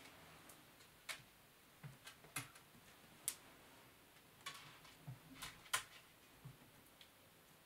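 Scattered light taps and clicks, about nine at irregular intervals, as a British Shorthair kitten pounces on a tabletop and a wand toy's dangling toy mouse knocks against it.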